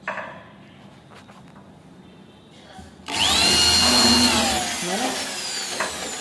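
Handheld electric power tool, of the drill kind used in carpentry, starting abruptly about three seconds in. It spins up quickly to a loud, steady high whine, then its pitch drops as it slows. A few light clicks come before it.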